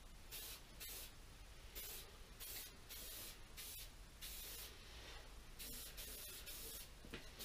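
Bullseye aerosol shellac sprayed from the can in a run of short hissing bursts, about a dozen, each well under a second, coming roughly two a second.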